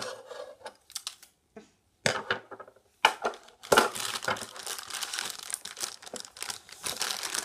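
Packaging crinkling and rustling as the pieces of a children's science lab set are handled, with a few sharp knocks of plastic parts. It is mostly quiet at first, and the rustling starts about two seconds in and goes on.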